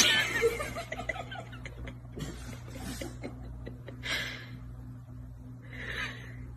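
Quiet snickering laughter from a person, twice, about four and six seconds in, over a steady low hum.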